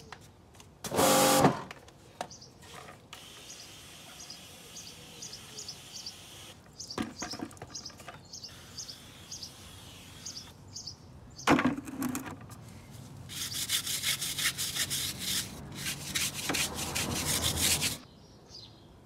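Wet wheel-washing sounds: a brush scrubbing and a hand pump sprayer rinsing foam off an alloy wheel. They come in bouts of rapid rubbing strokes, the longest near the end, with a short louder knock about a second in.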